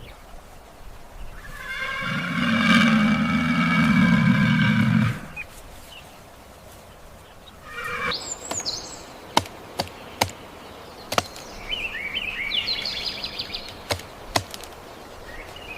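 Animal calls: one loud, drawn-out call lasting about three seconds, then higher chirping calls and a few sharp clicks.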